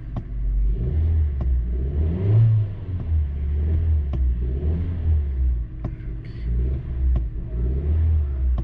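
A 2016 Kia Forte's four-cylinder engine running, heard from inside the car as an uneven low rumble, with a few light clicks. The cylinder 4 misfire (code P0304) has just been cleared, so it should be running without a misfire.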